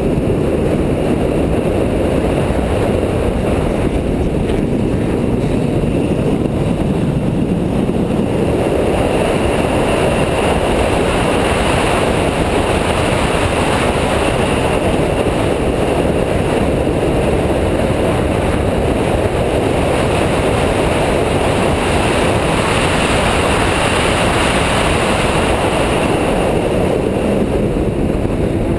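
Car lapping a race circuit at speed, heard from a camera mounted on the car: a loud, steady mix of engine, wind and road noise with no clear engine note. It grows brighter from about eight seconds in and eases back near the end.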